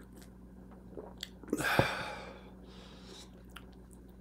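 Mouth sounds of a man sipping beer from a can: small wet clicks of sipping and swallowing, then a sudden loud breath out about a second and a half in that starts with a sharp click, and a softer breath about a second later.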